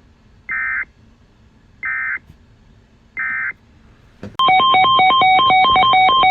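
Emergency Alert System end-of-message data: three short, identical screechy digital bursts about a second and a half apart. About four seconds in, a louder electronic signal starts, a rapid run of beeps jumping between a few pitches.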